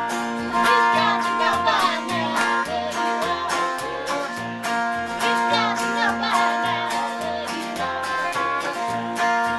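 A live country song played on acoustic guitar and electric guitar, with a woman singing.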